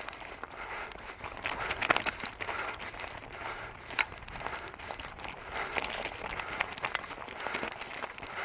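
Unicycle rolling down a rocky, grassy slope: a steady crackle of the tyre over stones, with several sharp knocks.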